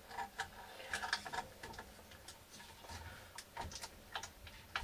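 Hands working plastic cable connectors and clips on a 3D printer's wiring: irregular light clicks and taps, with a sharper click near the end.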